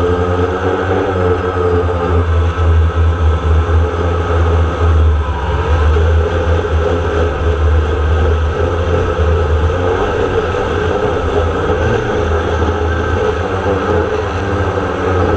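DJI Phantom quadcopter's electric motors and propellers running steadily in flight, heard from the aircraft's own camera: a loud, steady buzzing hum with a thin high whine on top.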